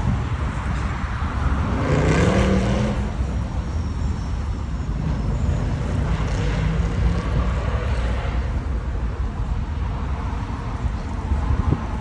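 Steady road traffic noise from a busy multi-lane city road, with a short pitched sound about two seconds in.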